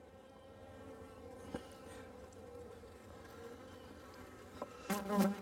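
Honeybees buzzing around an open hive during a package install, a steady hum, with a louder buzz for about half a second near the end. A light tap on the hive's wooden top bars about a second and a half in.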